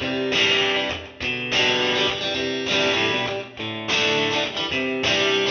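Background music: chords struck roughly once a second, each ringing on until the next.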